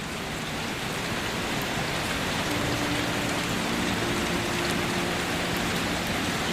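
Steady rain, an even hiss of falling drops that swells slightly in level. Faint held low notes of soft background music come in about two and a half seconds in.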